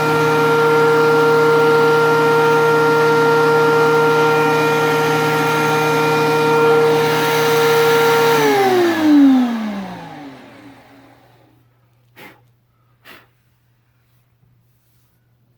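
DeWalt DW735 13-inch thickness planer running with a steady high-pitched whine, then switched off about eight seconds in, its motor and cutterhead winding down in a falling pitch until it fades out. Two faint clicks follow near the end.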